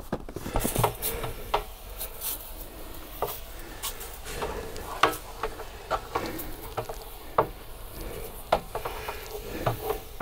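Irregular clicks, knocks and rubbing from a water tank being handled and gone over with disinfectant solution.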